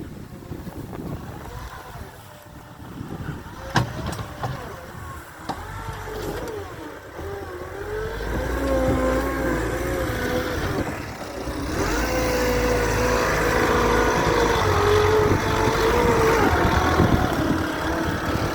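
Gehl V420 skid steer loader's diesel engine running and revving under load, its pitch wavering as it works, growing louder about halfway through. A sharp knock about four seconds in.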